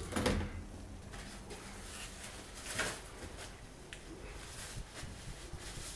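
A few light knocks, clicks and rustles of parts and tools being handled, over a faint low hum.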